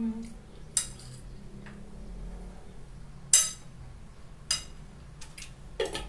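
Metal fork clinking and scraping on a plate while someone eats, in about four sharp clinks; the loudest is about three and a half seconds in.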